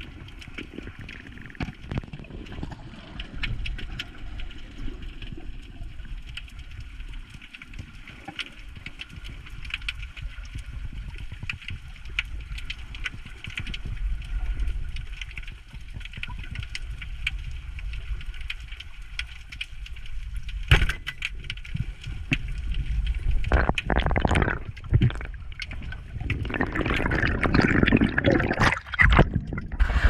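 Underwater ambience picked up through a sealed action-camera housing: a low rumble of moving water with scattered sharp clicks and crackle. About two-thirds of the way in, and again over the last few seconds, louder surges of rushing water noise come as the diver moves.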